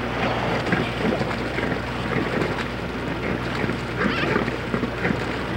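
Wind and water noise on a camcorder microphone, irregular and gusty, with a steady low hum underneath.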